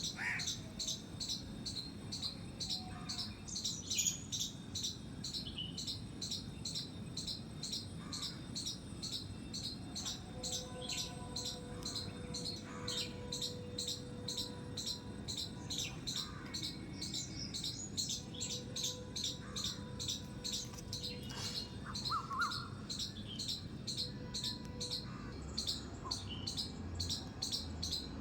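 A squirrel calling with a long run of evenly repeated, high, bird-like squeaks, a few a second.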